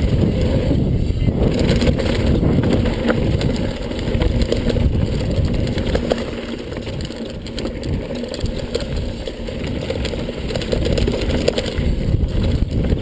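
Mountain bike rolling fast down a loose, sandy dirt trail: a steady rush of wind buffeting the action-camera microphone mixed with tyre rumble and small rattles from the bike, a little quieter in the middle.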